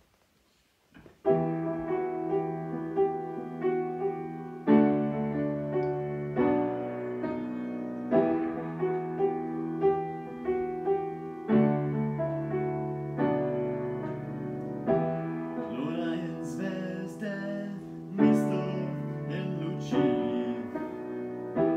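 Upright piano playing the opening chords of a song, beginning about a second in with chords struck in a steady repeating pattern and held between changes.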